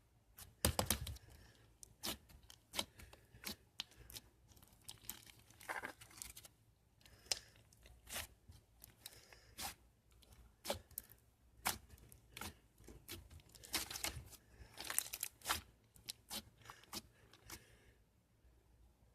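Close handling sounds: repeated short tearing and crinkling rustles of a thin material, with scattered sharp clicks at irregular intervals and longer rustles about a second in, around six seconds and around fifteen seconds.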